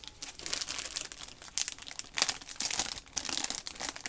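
Foil blind-bag wrapper crinkling as it is handled, a run of irregular crackles with no steady rhythm.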